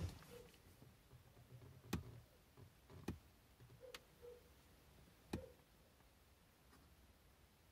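Near silence with three sharp, scattered clicks.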